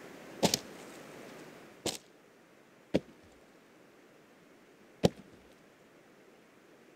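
An axe chopping into a rotten log: four sharp strikes at uneven intervals, the first followed by a quick second knock.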